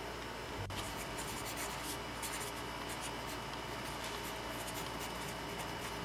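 Pencil writing on a sheet of paper: faint, irregular scratchy strokes starting about a second in, over a steady low room hum.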